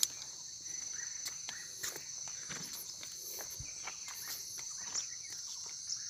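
Steady, high-pitched chorus of forest insects, with a few scattered faint clicks and knocks.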